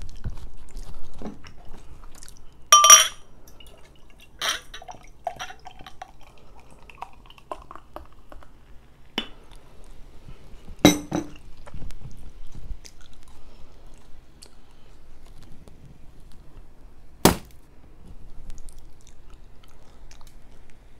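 Glass clinks and knocks as a brown glass beer bottle and a stemmed beer glass are handled on a table, with the beer poured from the bottle into the glass midway. The loudest is a ringing clink about three seconds in, and a sharp knock comes near the end.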